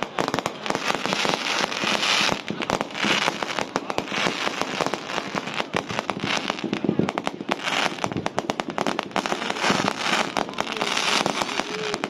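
Fireworks display: a continuous barrage of bangs from aerial shells and rockets, with several waves of dense crackling.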